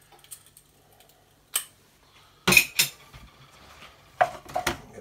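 Kitchen utensils clinking and knocking against a non-stick wok and crockery: a few light clicks, then sharp knocks about two and a half seconds in and again near the end, as a wooden spatula works through stir-fried vegetables.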